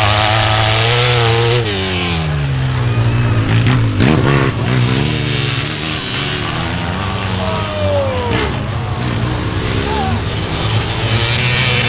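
Several sidecar motocross outfits' engines racing past, revving up and falling back again and again, with more than one engine note overlapping as the pack follows the leader.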